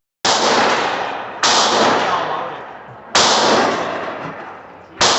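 Four gunshots about a second and a half apart, each a sharp crack that rings out and fades slowly.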